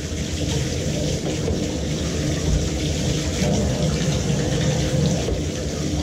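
Tap water running steadily and splashing over plastic dishwasher parts as they are rinsed in a bathtub.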